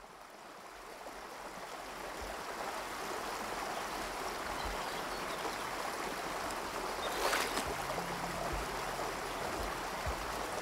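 Small mountain trout stream running shallow over a rocky bed, a steady rush of water that fades up from near silence over the first few seconds. A short, brighter rush of noise comes about seven seconds in.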